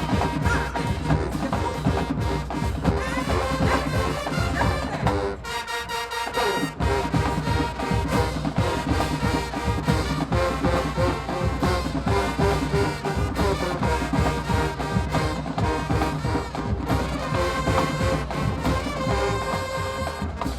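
Marching band playing: a brass section with a drumline beating out a steady rhythm, with a short break in the low end about five seconds in before the full band comes back in.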